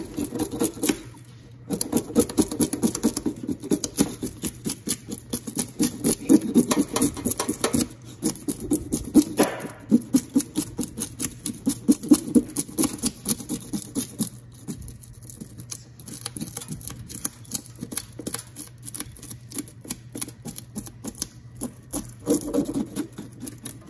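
Rapid, irregular scraping and clicking of a metal spoon being drawn against a bluegill's body, flicking off scales. The strokes are busiest in the first half and lighter in the second, over a steady low hum.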